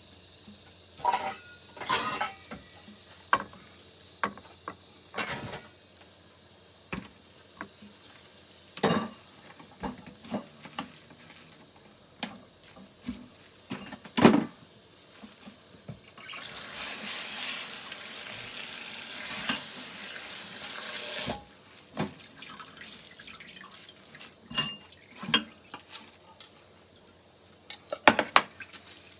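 A kitchen tap runs steadily for about five seconds midway. Scattered knocks and clinks of dishes and utensils being handled come before and after it.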